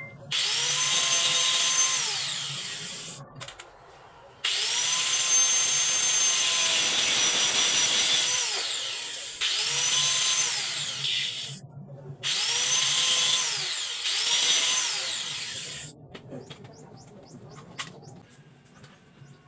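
Small electric angle grinder switched on and off about five times, cutting into a clear plastic bottle. Each run starts with a whine that rises as the disc spins up, then slides down in pitch as it coasts to a stop.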